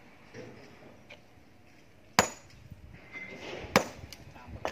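Sledgehammer striking a boulder of quarry rock by hand: two heavy blows about a second and a half apart, with a few lighter knocks after the second.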